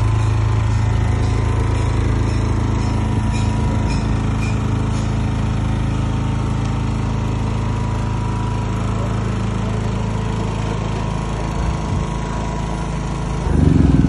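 10 kVA three-phase petrol generator in a soundproof acoustic enclosure running steadily after an electric start, a loud, even engine hum. A louder rumble comes in near the end.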